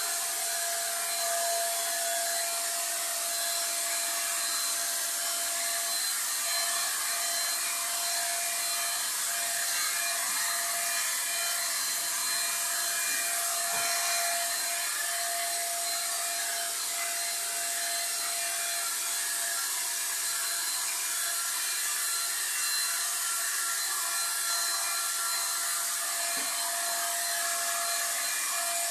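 Corded handheld electric paint spray gun running without a break, a steady motor whine over a hiss of air and paint, as white paint is sprayed onto a wooden cabinet.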